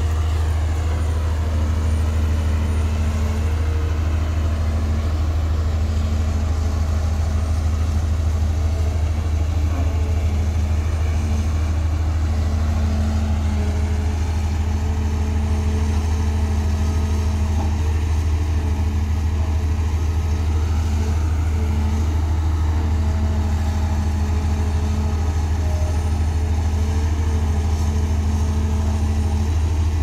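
Heavy construction machine's diesel engine running steadily under load, a deep, even rumble with a faint pitched drone above it that rises and falls a little.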